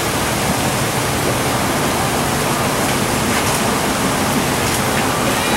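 A steady, even rushing hiss with no breaks.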